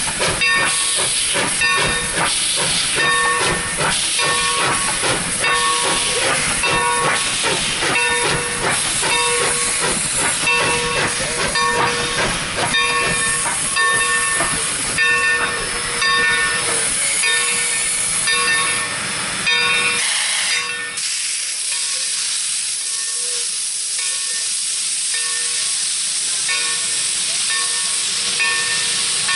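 Steam locomotive No. 30 of the Texas State Railroad letting off steam in a loud hiss, with a pitched ringing struck at an even beat of about once a second, as from the locomotive's bell. About twenty seconds in, the hiss and low rumble drop away while the ringing goes on.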